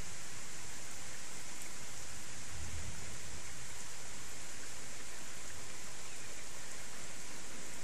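Thunderstorm rain falling as a steady hiss, with a brief low rumble about three seconds in.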